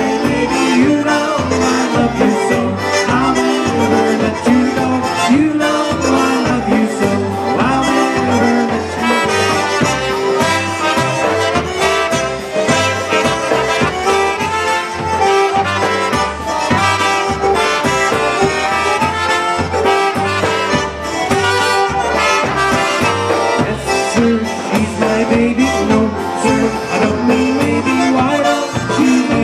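Live polka band playing an instrumental passage, two trumpets carrying the melody over a steady, regular bass beat.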